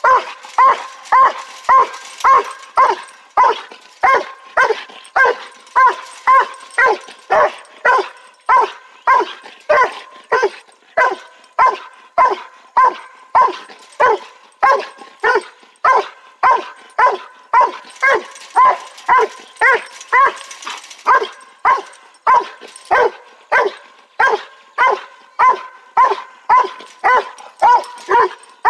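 A hunting dog barking at a raccoon, in short barks of the same pitch repeated without let-up, about two a second.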